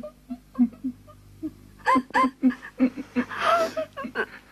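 Women sobbing: short, catching sobs, with louder wailing cries about two seconds in and again past three seconds.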